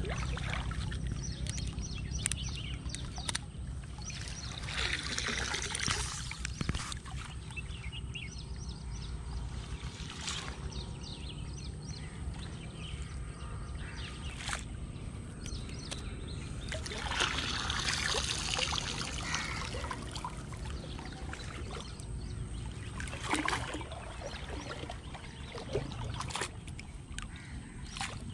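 Water sloshing and dripping as a wet cast net is handled and gathered up in shallow creek water, with a few louder spells of splashing.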